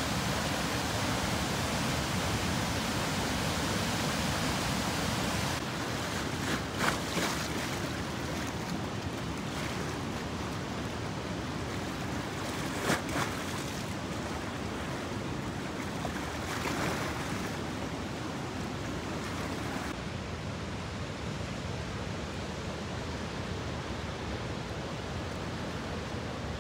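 Steady rushing roar of a river in heavy flood, its fast brown water churning and pouring over and past obstructions. A few brief knocks come through about 7, 13 and 17 seconds in, and the sound dulls a little near 6 seconds and again near 20 seconds.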